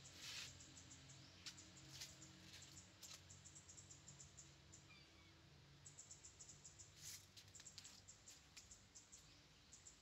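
Near silence, with faint scattered clicks and rustles of a kitten's paws on dry leaves and stone, and a faint bird chirp about five seconds in.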